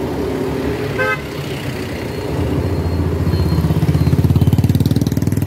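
A short vehicle horn toot about a second in. Then a motorcycle's engine passes close by with a fast pulsing beat, growing louder from about two and a half seconds in and dropping away at the end.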